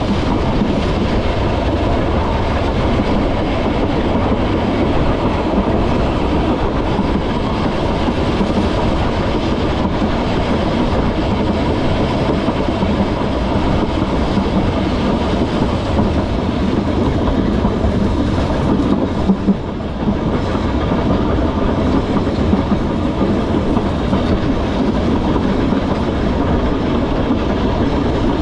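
Vintage Manx Electric Railway tram car running along its narrow-gauge track: steady wheel-on-rail running noise and rumble. A couple of sharp knocks come close together a little past two-thirds of the way in.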